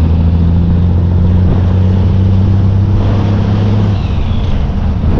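Cargo truck's engine pulling away under load, heard from the open cargo bed: a steady low engine note that drops away and loosens about four seconds in.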